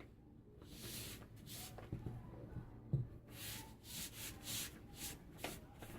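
Dry craft moss rustling and scraping in a series of short strokes as it is pressed down by hand, with a soft knock about three seconds in.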